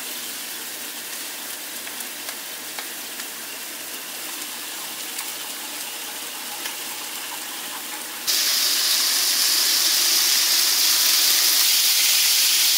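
Seasoned chicken breasts searing in a cast-iron skillet, a steady sizzle that becomes suddenly much louder about eight seconds in. Before that, under the quieter sizzle, a few light clicks of a whisk stirring gravy in a small saucepan.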